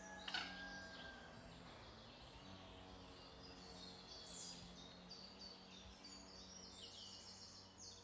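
Faint birdsong: several birds chirping in short high notes, with a sharp downward-sweeping call about a third of a second in and a fast run of repeated notes through the second half.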